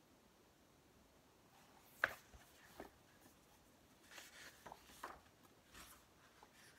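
Quiet handling of a hardcover picture book as its pages are turned: a sharp tap about two seconds in, then soft rustling and light taps of paper and cover.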